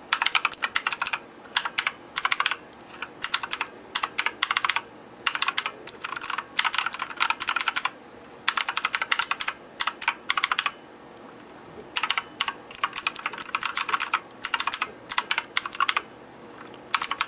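Typing on a Redragon K551 Vara mechanical keyboard with clicky switches that feel like Cherry MX Blues: very clacky and clicky keystrokes coming in fast runs, with short pauses between them.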